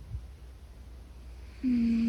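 Large domestic cat snoring in its sleep. A low breathing rumble runs under a short, steady humming snore note of about half a second near the end.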